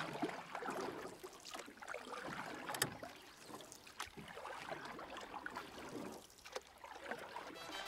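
Low, steady ambient sound aboard a fishing boat sitting on a river: water lapping against the hull, with small scattered knocks and handling noises and one sharper tick about three seconds in.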